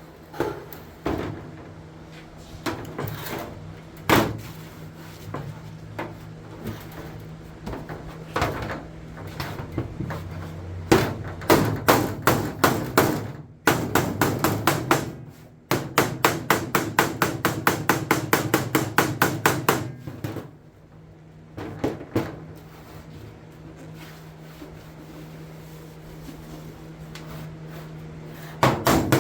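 A hammer beating dents out of an aluminum race-car body panel, with scattered single blows and then fast runs of about five strikes a second. A steady low hum runs underneath.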